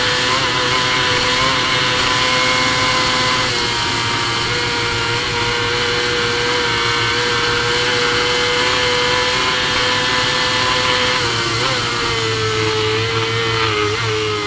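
Supersport racing motorcycle engine held near full throttle at high speed, heard from onboard: a steady high engine note over wind rush. About eleven seconds in, the note drops and wavers as the bike slows.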